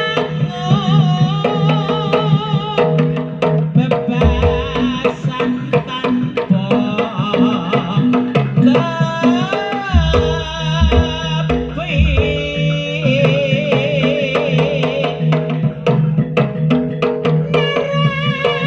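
Javanese jaranan music: kendang hand drums playing dense strokes under a wavering, vibrato reed-trumpet melody, with deep booming strokes about four and ten seconds in.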